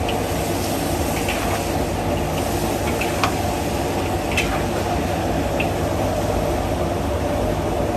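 Steady low rumble of a busy restaurant kitchen, with a few faint clinks of dishes.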